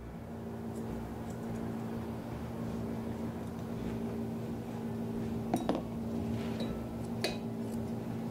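Grooming scissors snipping the fur around a dog's paw, with light metallic clicks of the closing blades and two sharper clicks near the end, over a steady low hum.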